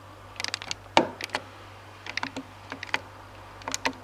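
Irregular light clicks and taps of hands handling wiring, connectors and the aluminium evaporator inside a fridge's freezer compartment, with the sharpest click about a second in.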